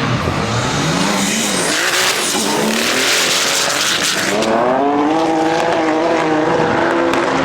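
A performance car's engine revving hard with tyres screeching. The screech is loudest in the first half, and the engine is then held at high revs with its pitch wavering up and down.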